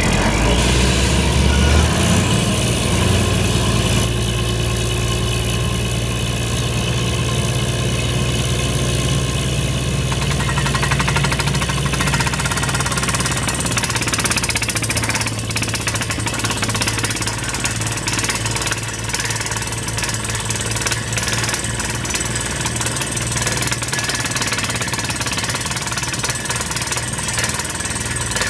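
Borewell drilling rig running at full work: its diesel engine drones steadily, the pitch stepping up about two seconds in, over the rapid hammering of the air-driven down-the-hole hammer and the rush of compressed air blowing rock dust out of the hole.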